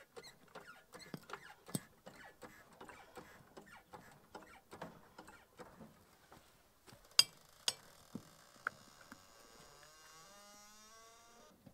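Floor jack being pumped under a lawn tractor, its pump and handle clicking faintly and irregularly. Two sharper clicks come about seven seconds in, followed by a faint rising whine near the end.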